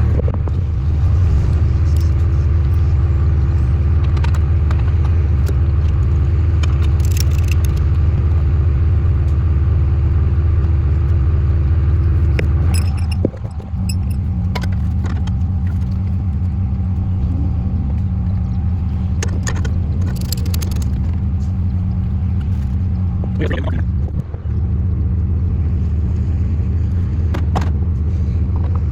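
Steady low hum of a running vehicle engine, with a few light clicks and rattles. The sound drops briefly twice, about 13 and 24 seconds in.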